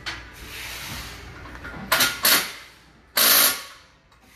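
Three short, loud bursts of hissing, like a compressed-air tool in the workshop, about two seconds in, just after, and the loudest a little past three seconds.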